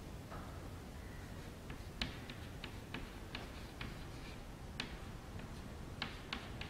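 Chalk writing on a chalkboard: a run of sharp, irregular taps as the chalk strikes the board, with faint scraping strokes between them.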